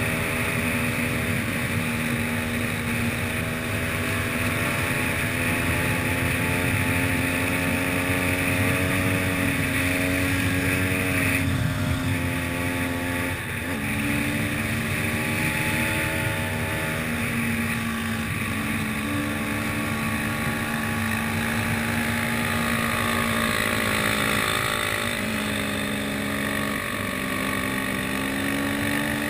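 Enduro motorcycle engine running under way, heard on board the bike, holding a steady note that dips and steps to a new pitch several times as the throttle or gear changes, with wind noise on the microphone.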